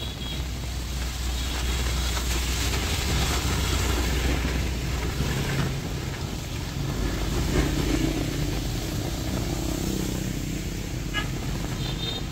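Motor traffic passing on a rain-soaked city street: engines rumble and tyres hiss on the wet road over a steady wash of heavy rain, growing louder as vehicles go by, once about two seconds in and again around eight seconds.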